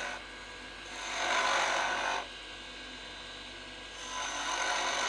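Skew chisel cutting into the end grain of a dry wood spindle spinning on a lathe, squaring the end off. Two cutting passes: one about a second in, lasting just over a second, and a longer one starting near the end.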